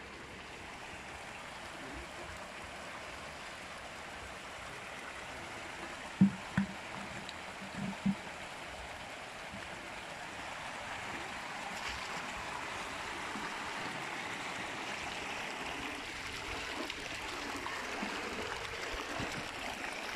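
Water pouring from inflow pipes into concrete trout-farm raceways: a steady rushing splash that grows louder in the second half. A few short, low thumps stand out about six to eight seconds in.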